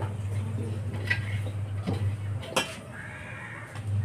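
Steel cooking pots clinking and knocking as they are handled, a few sharp clinks about a second apart over a steady low hum.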